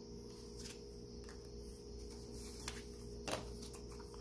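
Glossy photo cards being handled and shuffled by hand, giving a few light taps and clicks, the clearest about three seconds in, over a steady low hum.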